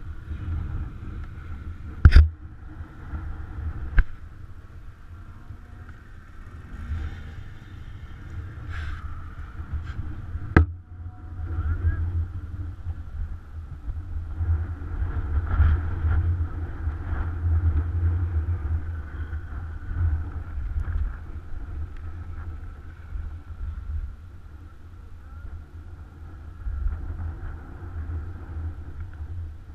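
Dirt bike engines running at idle under a gusting low rumble of wind on the bike-mounted microphone, with a few sharp knocks, the loudest about two seconds in.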